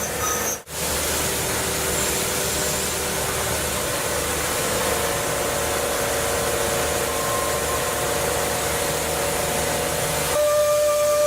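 CNC machine running, a steady hiss with faint machine tones under it. Near the end a strong steady whine sets in.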